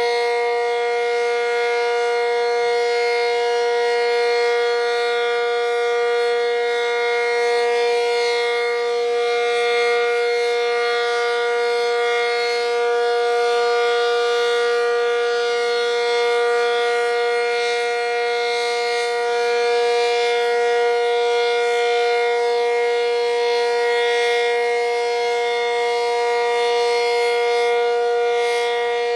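ASC Cyclone C-125 electromechanical outdoor warning siren, reverse wired, holding a steady Full Alert tone at constant pitch. Its loudness swells and dips slightly.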